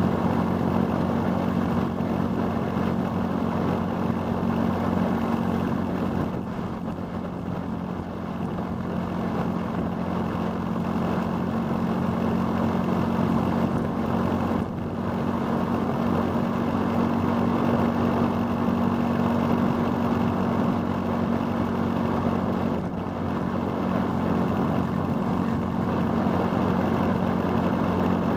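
Motorcycle engine running at a steady cruise, heard from on board over wind and road noise, with its pitch holding level and a slight dip in loudness about a quarter of the way through.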